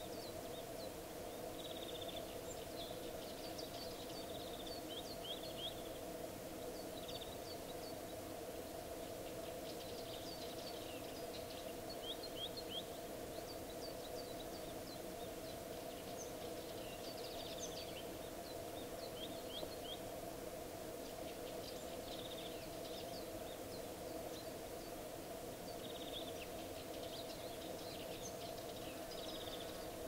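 Small birds chirping in scattered short, quick calls, over a steady low hum.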